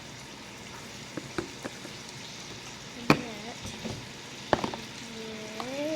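Slime being handled and pressed into plastic containers: scattered clicks and pops, with a couple of squeaky, squelching glides as air is squeezed out of the slime, the longest rising near the end.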